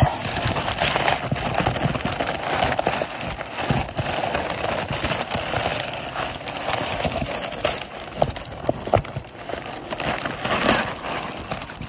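Crumpled brown kraft packing paper crinkling and rustling as hands pull it out of a cardboard shipping box, with many sharp crackles.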